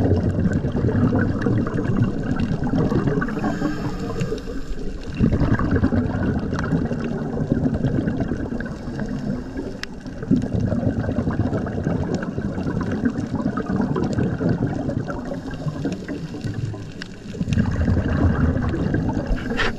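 Water gurgling and rushing around an underwater camera, coming in louder surges every few seconds with a low rumble.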